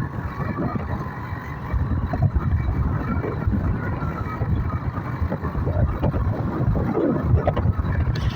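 Motorcycle engine running steadily on the move, heard as a continuous low drone with a faint steady whine above it.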